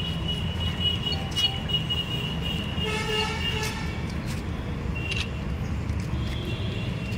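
Street traffic rumble with a vehicle horn sounding once, for under a second, about three seconds in. A faint high whine runs through the first half.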